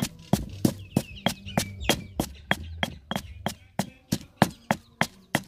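Stone pestle pounding salt and chopped chili in a stone mortar: sharp, evenly spaced strikes at about three a second.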